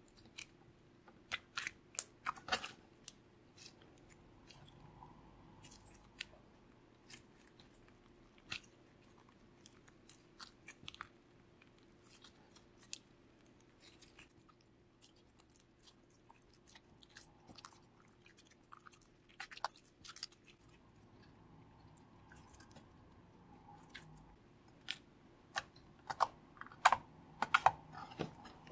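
Slime being mixed and squeezed by hand, giving irregular sharp clicks and pops, bunched in quick clusters near the start and near the end with scattered single pops in between.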